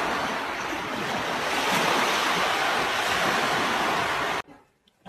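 Ocean surf washing onto a sandy beach, a steady rushing that cuts off suddenly a little over four seconds in.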